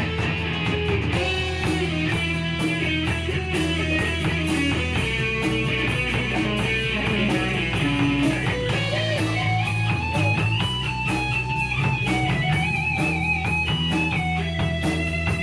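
Instrumental break of a rock song: electric guitar playing a lead melody with bent notes over drums and bass, with no singing.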